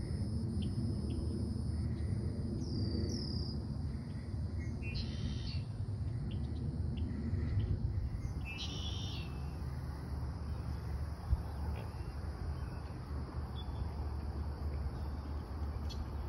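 Outdoor nature ambience: birds give short calls several times, the strongest about five and nine seconds in, over a steady low rumble, with a high thin insect drone in the first few seconds.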